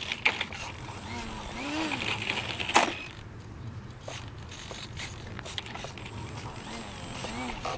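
Small foam RC model plane rolling and tipping over on a gravel track: scattered clicks and gravel crunches, with one sharp clack about three seconds in. Fainter outdoor background follows.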